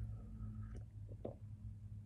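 Faint sipping of a michelada through a straw, with a thin whistle-like tone that dips in pitch and levels off in the first second. A few small mouth clicks come about a second in.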